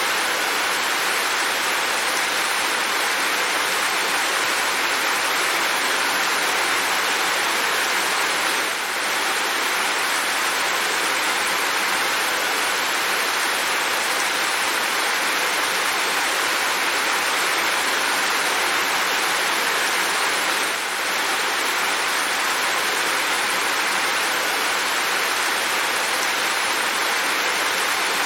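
Steady rain, an even dense hiss with no separate drops standing out, dipping briefly twice.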